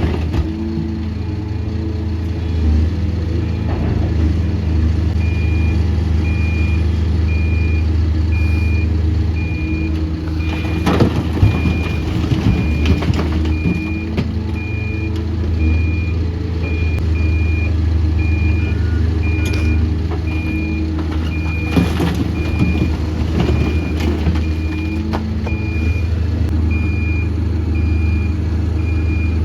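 Heavy diesel machinery running steady and low, with a reversing alarm starting about five seconds in and beeping at an even pace, a little over once a second. A few knocks and clanks come around the middle.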